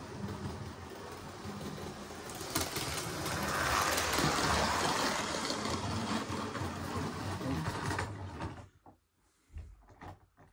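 Model railway train running on the layout: motor whirring and wheels rattling over the track. It grows louder to a peak about four seconds in, then fades, and cuts off suddenly about eight seconds in, leaving a few faint clicks.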